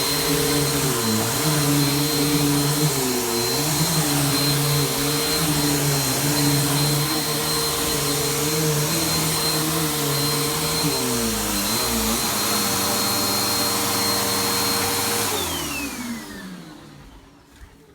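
Household vacuum cleaner running steadily over carpet, its motor hum dipping and recovering in pitch now and then. It is switched off about fifteen seconds in, and the motor winds down with a falling whine. A few faint clicks near the end.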